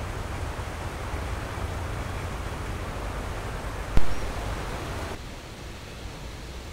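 Steady rushing noise of a river with a low rumble under it, broken by a single sharp thump about four seconds in. About a second later the sound drops to a quieter, steady rush of water spilling over a small weir.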